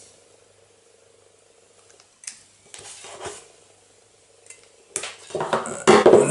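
Hand-held metal wire strippers clicking and scraping as they strip thin battery leads, a few sharp clicks in between. About five seconds in comes a louder clatter of the metal tool being handled and laid down on a wooden bench.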